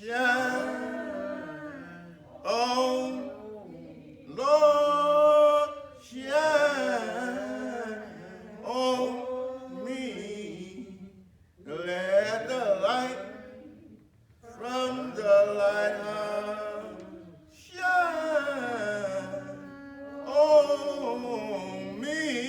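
A voice singing a slow gospel hymn in long, drawn-out phrases with short breaks between them.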